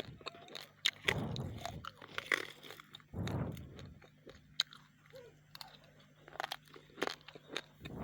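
Raw, uncooked rice grains being crunched and chewed close to the microphone. There are two dense crunching bites about a second in and about three seconds in, then a run of small, sharp cracks as the grains are ground down.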